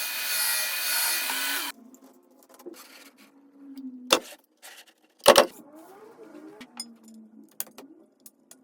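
Workshop handling noises: a loud steady hiss-like noise that stops abruptly after about a second and a half, then scattered clicks and two sharp knocks, as of tools and screen-frame parts being handled.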